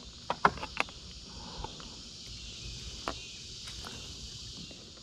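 Steady high-pitched insect chorus of crickets. A few sharp clicks and knocks sound in the first second and once more about three seconds in.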